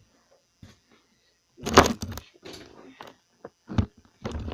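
Several sudden thumps and knocks, the loudest a cluster about two seconds in, followed by softer bumps.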